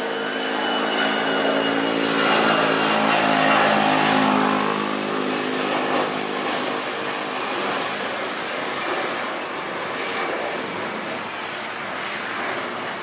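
Jet airliner's engines passing close by on landing approach: a rushing whine with a low droning hum that swells to its loudest about four seconds in, then fades to a steady, distant rush.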